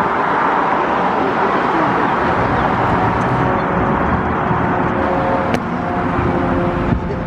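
Classic cars cruising slowly past in a line: engines running and the steady noise of street traffic. A few steady tones come in over the second half, and there is one sharp click about five and a half seconds in.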